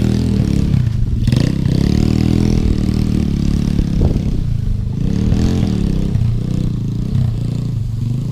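Off-road motorcycle engine revving up and down again and again while climbing a slippery mud hill, with a couple of sharp knocks and some clatter from the bike.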